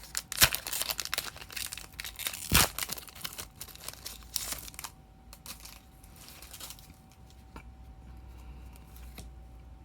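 Foil Pokémon booster pack wrapper being crinkled and torn open, with two loud sharp rips about half a second and two and a half seconds in. The crinkling dies away after about five seconds, leaving only a few faint handling clicks.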